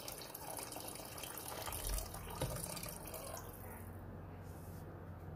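Cold water poured from a pot into a pan of lentils and chopped vegetables, splashing steadily into the stew; the pour tails off about three and a half seconds in.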